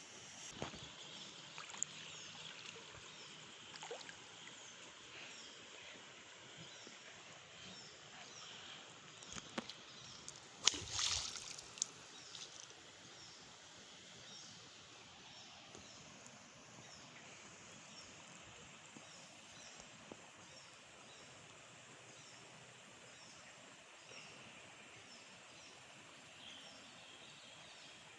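Faint steady rush of a rocky river's flowing water, with faint repeated high chirps over it. A brief louder noise stands out about eleven seconds in.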